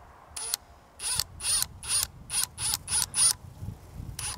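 Cordless impact driver with a T25 Torx bit starting a 3-inch exterior screw into a 2x4, run in about nine short bursts of the trigger, each a brief high whine.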